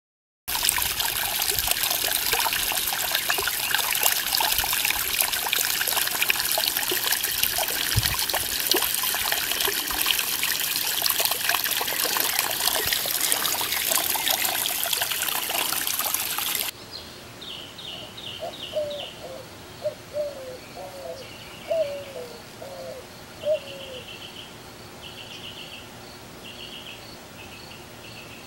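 Water spilling through a gap in a stone pool wall and splashing into a rock basin below, a steady splashing rush. About two-thirds of the way through it cuts off abruptly to quieter birdsong: bursts of short high chirps and lower notes that slide downward.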